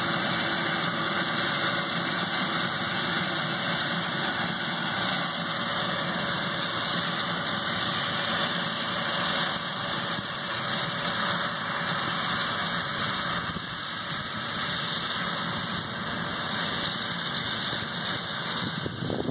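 Ride-on mower engine running steadily as it cuts grass, growing a little fainter as it moves away.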